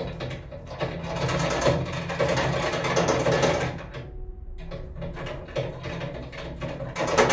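Padlock being rattled and worked rapidly, a fast metallic clatter in two long spells with a short break about four seconds in.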